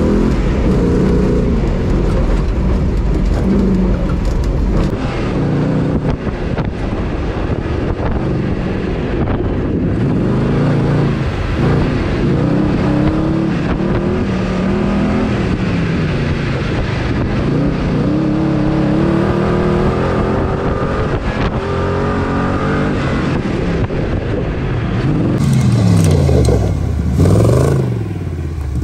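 Off-road buggy's engine revving hard under load, its pitch climbing and dropping again and again as it accelerates and shifts along a rough dirt track. Near the end the revs swing up and down more quickly.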